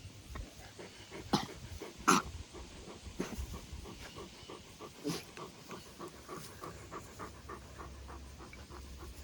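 A dog panting quickly and steadily, with two louder sharp sounds about one and a half and two seconds in.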